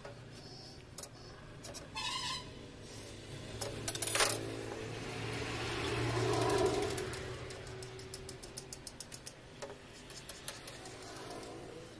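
Hand-marking steel tubing: white chalk scratching and tapping on the steel tube, with a steel square clinking and sliding on a steel worktop, and one sharp metal knock about four seconds in. Quick chalk ticks near the end as cross-hatching is drawn.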